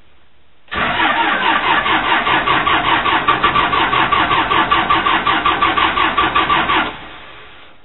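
Case 580C backhoe's four-cylinder diesel being cranked on the starter in a cold start at about 20 degrees, turning over in a steady, rapid pulsing rhythm for about six seconds. The starter stops near the end without the engine having caught.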